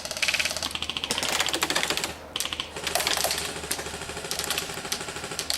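Airsoft guns firing in rapid full-auto bursts, a fast string of sharp clicking shots with a short break a little over two seconds in.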